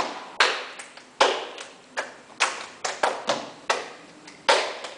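Cheerleaders' hand claps in a cheer rhythm, roughly two sharp claps a second, each ringing on briefly in the echo of a tiled room.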